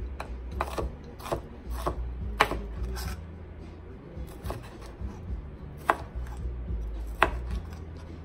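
Chef's knife dicing orange bell pepper on a thin plastic cutting mat over a wooden board: irregular sharp taps of the blade hitting the mat, with a few noticeably louder strikes, over a steady low hum.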